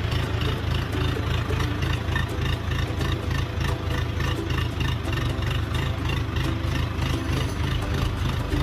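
An engine running steadily, with an even low pulse.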